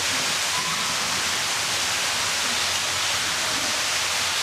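A steady rushing hiss.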